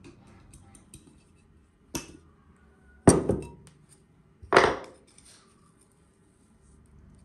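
Kitchenware knocking against a wooden table three times, about two, three and four and a half seconds in, the last two loud, after faint light ticking of flour and spice being sprinkled.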